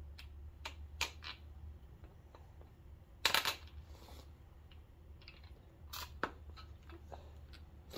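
Scattered light metallic clicks and scrapes from stuck hydraulic lifters being worked at in the lifter bores of an LS V8 engine. A sharper scrape comes about three seconds in and another near six seconds. The lifters have a lip on them and barely come out of their bores.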